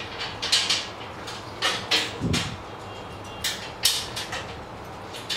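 Metal parts of a black iron trolley frame being fitted together by hand: a series of short, irregular scrapes and knocks of metal on metal.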